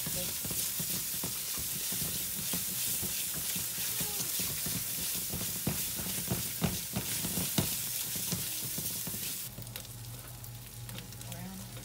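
Onion puree frying in hot oil in an aluminium pot: a steady sizzle, with the scrape and tap of a silicone spatula stirring it. The sizzle falls much quieter near the end.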